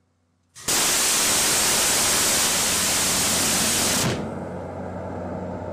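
M61A1 20 mm Gatling gun of a land-based Phalanx (C-RAM) mount firing one continuous burst, starting suddenly about half a second in and stopping abruptly after about three and a half seconds. A lower steady hum remains afterwards.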